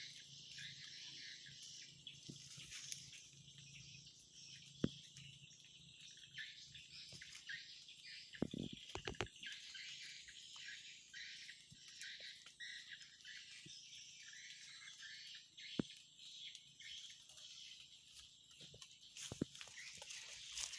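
Faint natural outdoor ambience: a steady high-pitched chorus of small creatures, with a few sharp clicks or knocks about 5 s in, around 8 to 9 s in, and near 16 s in.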